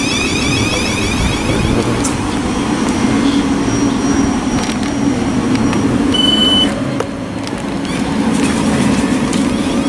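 Thameslink Class 700 electric multiple-unit train at the platform, its equipment giving a steady low hum, with a single short high beep about six seconds in.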